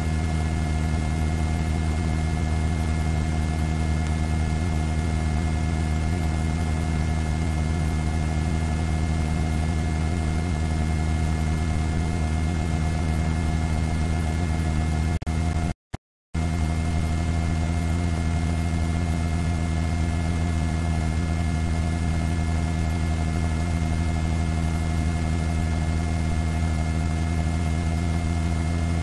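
Steady drone of a news helicopter heard from inside the cabin: an even hum of several steady tones over a noise bed. The sound cuts out for about half a second midway.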